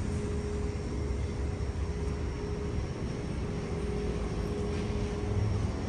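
New Intercity Fleet Mariyung electric double-deck train making a steady low rumble with a continuous hum as it runs slowly at the platform. The hum drops out shortly before the end.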